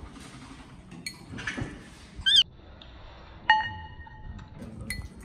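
A baby monkey gives one short squealing call a little over two seconds in. About a second later a metal spoon strikes a ceramic bowl with a sharp clink and a short ring, among smaller clicks of spoon and chopsticks on dishes.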